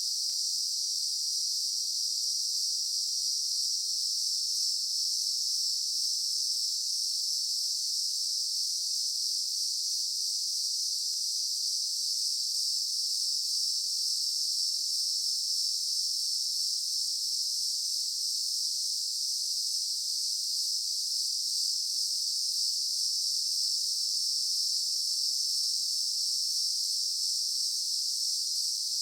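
Daytime insect chorus: many insects making a steady, unbroken high-pitched buzzing hiss.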